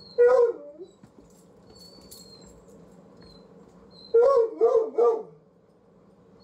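A dog barking: one loud bark just after the start, then a quick run of three about four seconds in.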